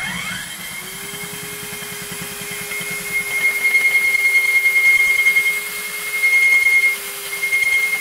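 Electric core drill spinning up with a rising whine, then running steadily as its core bit cuts through the brick wall, a high motor whine over grinding noise. It gets louder about three seconds in as the bit bites, and eases off for a moment near the end.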